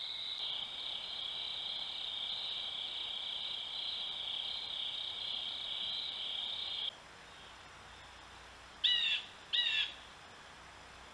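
Crickets or other night insects trilling in a steady chorus that cuts off suddenly about seven seconds in. Near the end, two short falling bird calls come close together.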